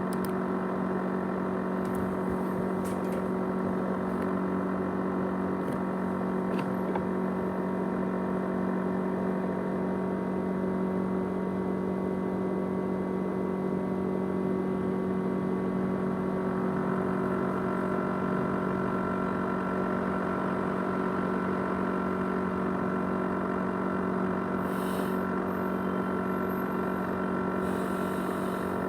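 ASUS X543UA laptop with a 500 GB USB hard drive running, giving a steady whirring hum made of several steady tones. A higher tone joins in about seventeen seconds in.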